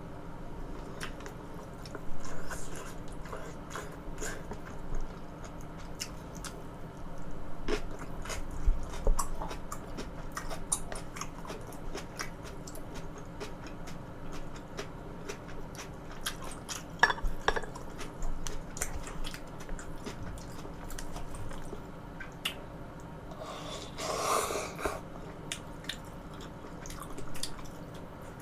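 Close-miked chewing and mouth sounds of a person eating, with many small wet clicks and smacks, and one louder breath about three-quarters of the way through.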